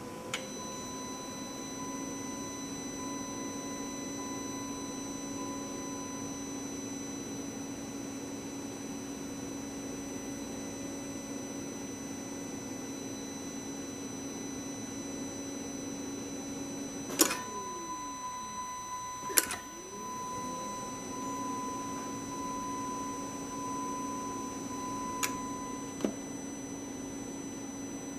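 Electric fuel pump running with a steady hum while priming the diesel fuel system through the new filter, pushing fuel out a bleed line into a bottle. About 17 s in it clicks off and winds down with a falling pitch, there is another click, and about 20 s in it spins up again and runs on, with a couple of light clicks near the end.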